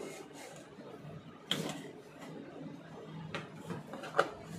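Cardboard laptop box being opened by hand: flaps and lid rustling and knocking, with a few sharp taps and the loudest knock near the end.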